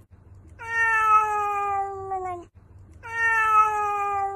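Domestic cat, orange and white, meowing: two long, drawn-out meows of about two seconds each, each sliding slightly down in pitch, the second starting about three seconds in.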